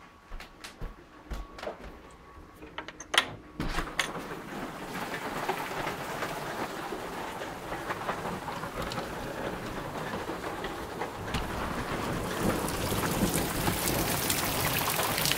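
A few light clicks and knocks, then about three and a half seconds in the sound of a heavy rain downpour comes in suddenly and grows louder. The hail has stopped, and it is only water falling now.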